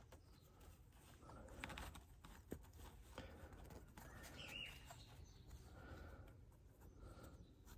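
Near silence: a few faint clicks, with a faint bird chirp about four and a half seconds in and a couple of fainter chirps later.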